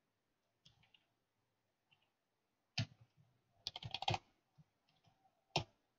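Computer keyboard being typed on: a few faint scattered keystrokes, then a quick run of key clicks a little past the middle.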